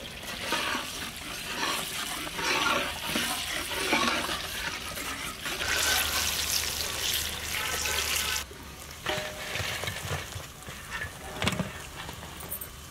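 Steady sizzle of chicken pieces deep-frying in hot oil in a wok. It cuts off suddenly about eight and a half seconds in, leaving a quieter stretch with a few faint knocks.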